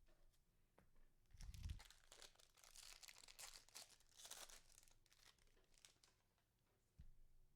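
Foil wrapper of a trading card pack crinkling and tearing, with a soft knock about a second and a half in and another near the end.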